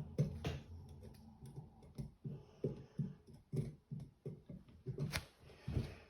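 Irregular light clicks and knocks, about two a second, from handling the small metal and plastic parts of a nail gun's drive spring assembly.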